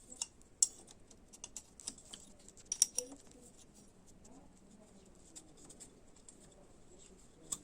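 Scattered sharp clicks and taps of metal hand tools and small engine parts being handled, most of them in the first three seconds, then faint handling noise and one more click near the end.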